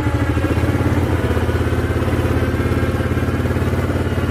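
Yamaha Kodiak ATV engine running steadily with a rapid, even pulsing beat, while its Bulldog 3000 lb electric winch winds in wire rope and drags the quad out of a creek.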